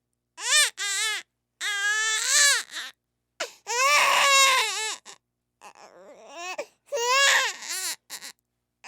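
Infant crying in a series of wails, each rising and falling in pitch, broken by short gasps for breath.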